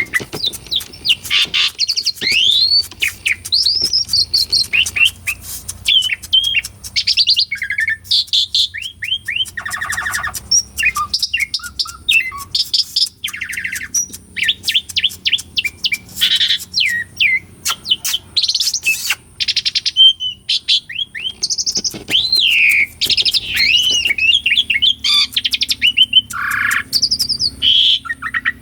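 Asian pied starling (jalak suren) singing an unbroken, varied song of whistled up-and-down notes, fast clicking chatter and harsh rasping phrases.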